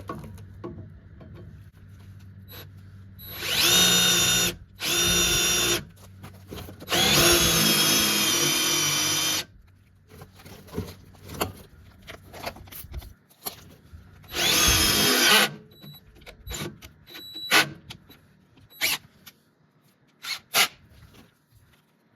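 Power drill running in four bursts, the longest about two and a half seconds, drilling holes in the front crossmember of a 1997 Toyota Tacoma for skid plate mounting bolts; the first burst rises in pitch as the drill spins up. Scattered sharp clicks and knocks follow the drilling.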